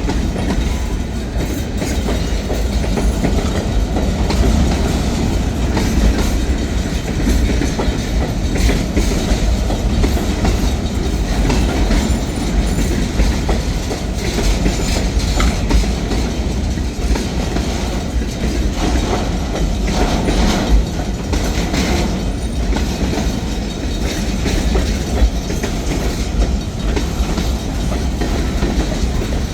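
Train cars rolling past: a loud, steady rumble with the clickety-clack of wheels over the rail joints.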